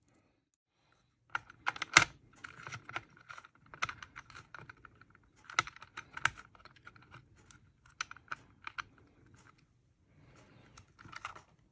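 Small metal and plastic parts being handled: a brushless motor in its mount being fitted into a plastic 1/10 RC car chassis, with irregular light clicks, taps and scrapes. The loudest knock comes about two seconds in.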